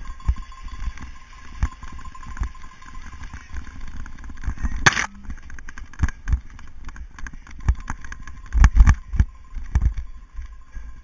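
Cyclocross bike and its onboard camera rattling and knocking over bumpy grass at race pace, with irregular thumps as the tyres hit the rough ground and a cluster of heavier knocks near the end. A single sharp, loud noise cuts through about five seconds in.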